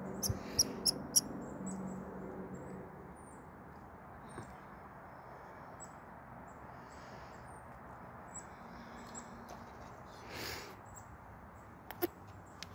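Red squirrel barking at a gray squirrel: a few short, sharp calls about half a second to a second in, then faint scattered high chirps, with a couple more sharp calls near the end.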